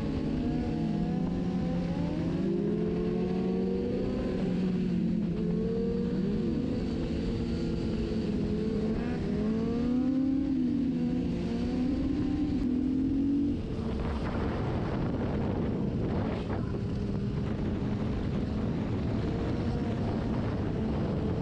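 Several motorcycle engines revving, their pitches rising and falling and overlapping one another. About two-thirds of the way through, the sound changes abruptly to a steadier, noisier engine sound.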